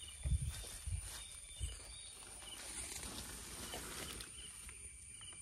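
Quiet outdoor plantation ambience: a steady high hum and short, repeated chirps from wildlife, with a few soft low thumps in the first two seconds.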